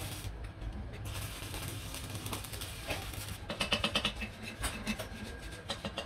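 Stick-welding arc crackling and hissing on a fridge compressor's steel shell, then from about three and a half seconds in a chipping hammer tapping slag off the weld in quick, irregular metallic taps.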